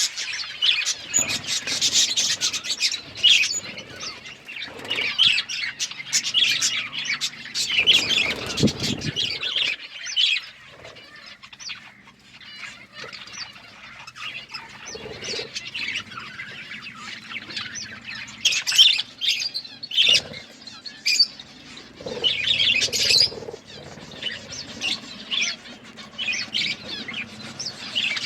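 A flock of budgerigars chirping steadily, with many quick overlapping calls and a quieter spell in the middle.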